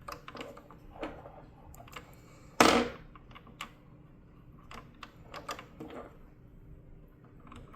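Clicks and light knocks of a blade wrench and metal parts being handled on a cordless circular saw's blade arbor, with one louder knock about two and a half seconds in.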